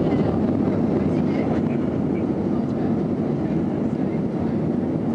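Steady low rumble of an Airbus airliner's engines and airflow, with faint voices over it.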